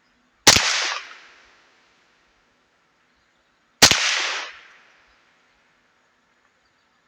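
Two shots from a Ruger 10/22 .22 LR semi-automatic rifle, about three seconds apart, each trailing off in a short echo.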